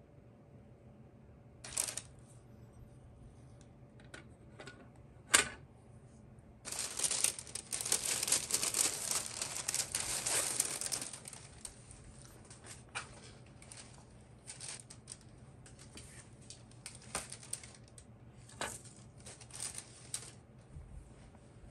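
Packaging being handled: crinkling and rustling wrapping with scattered clicks and knocks, a sharp click about five seconds in, and a long stretch of dense rustling in the middle.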